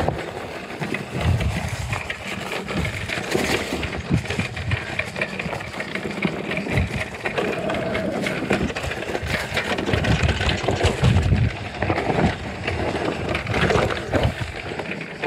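Santa Cruz Heckler electric mountain bike ridden over a dirt and rocky singletrack: tyres crunching over dirt and stones, with the bike rattling through many small knocks and clatters.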